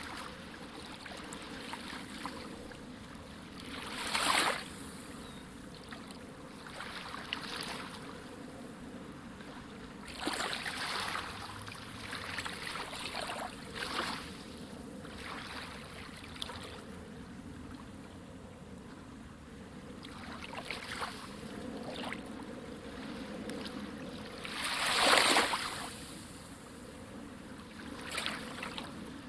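Water rushing steadily, with irregular louder splashing surges; the biggest come about four seconds in and near the end.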